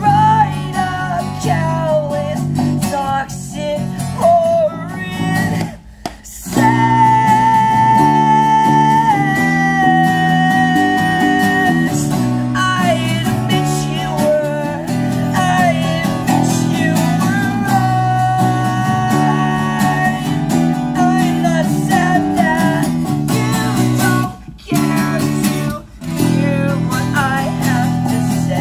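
Live acoustic band: strummed acoustic guitar and bass under a high male voice singing a wavering, held melody. The band cuts out briefly about six seconds in and twice more near the end.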